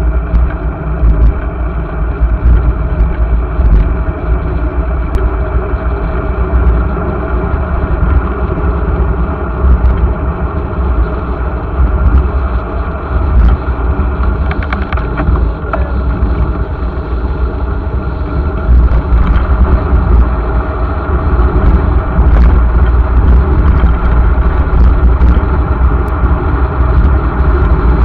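Wind buffeting the microphone of a camera riding on a moving bicycle, a steady heavy rumble with the hiss of the tyres on asphalt. It grows a little louder about two-thirds of the way through as the bike gathers speed.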